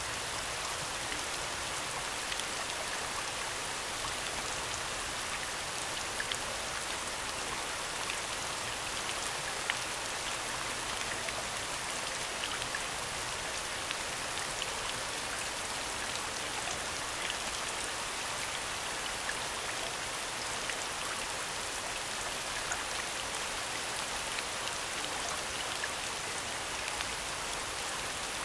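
Soundscape of steady falling rain: an even hiss with scattered small drop ticks, unchanging throughout.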